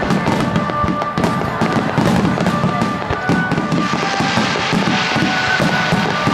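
Fireworks going off in rapid succession, a dense run of cracks and pops, with music playing along.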